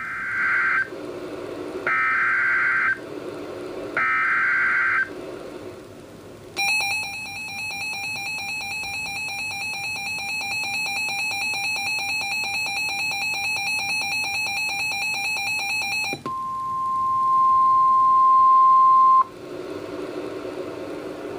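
Emergency Alert System alert on NOAA Weather Radio for a severe thunderstorm warning. Three short screeching bursts of SAME digital header data come first. Then a harsh buzzing alert tone sounds for about ten seconds, followed by a few seconds of a steady single-pitch warning alarm tone.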